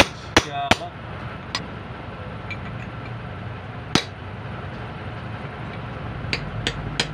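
Metal struck with a hammer: three sharp ringing blows in quick succession at the start, a single blow about four seconds in, and a few lighter taps near the end, over a steady low hum.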